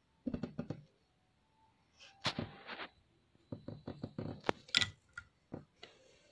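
Hands taking the ornaments off a small metal Laddu Gopal idol: small knocks and clicks of jewellery and the idol's flute being handled, coming in three short clusters.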